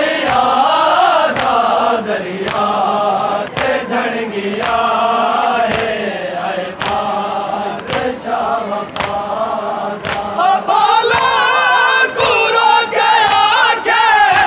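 A group of men chanting a noha in unison, led by a single reciter. Sharp slaps land about once a second in time with the chant: the chest-beating of matam. Near the end a higher lead voice rises over the group.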